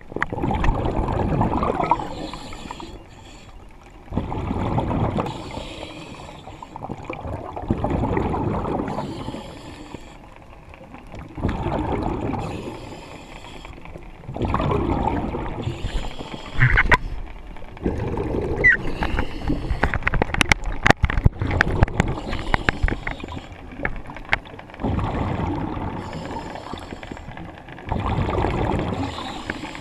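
Diver breathing underwater on air fed from a surface compressor: a rush of exhaled bubbles about every three to four seconds, with quieter inhales between. A cluster of sharp clicks and knocks comes in the middle.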